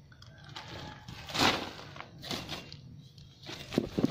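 Sandy soil pouring out of a woven plastic cement sack into a plant pot, with the sack rustling. There is one louder rush about a second and a half in, and a few sharp knocks near the end.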